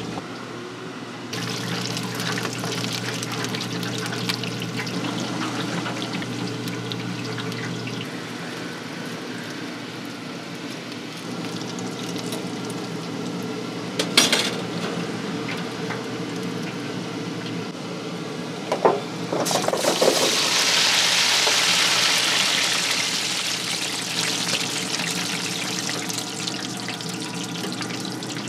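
Hot oil in a deep fryer sizzling and bubbling around shredded-taro cakes in a wire basket, over a low steady hum. There are two sharp knocks, about 14 and 19 seconds in, and then a louder burst of sizzling about 20 seconds in that dies down over a few seconds.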